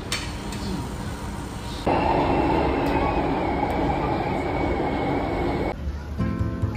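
Inside a moving metro train carriage: a steady rumble of the running train with a thin high whine that dips slightly in pitch. It starts abruptly about two seconds in and cuts off about a second before the end, where guitar music takes over.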